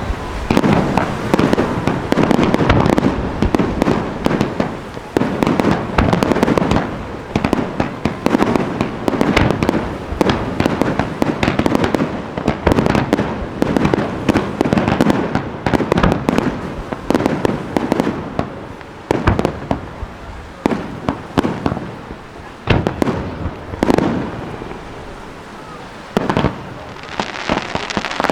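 Fireworks display of spherical aerial shells (Kugelbomben) launching and bursting, with many bangs overlapping in quick succession. The bursts thin out and grow quieter in the last third, with a few single loud bangs near the end.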